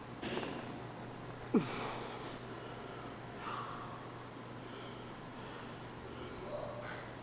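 A person breathing hard from exertion, with one sharp, forceful exhale or grunt that drops quickly in pitch about a second and a half in, followed by a breathy hiss and softer breaths.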